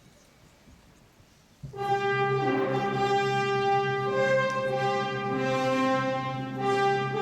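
Near silence, then about a second and a half in, orchestral-style background music starts with long held brass-like chords.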